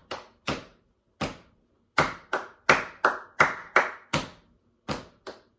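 Hand clapping in rhythm patterns: three spaced claps, then a run of seven quick, even claps at about three a second, then two more spaced claps near the end.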